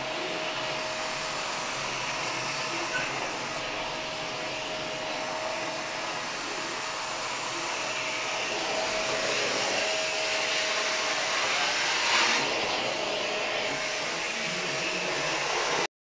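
Vacuum cleaner running steadily: a constant whine over a rushing hiss. It grows louder about twelve seconds in and cuts out for a moment near the end.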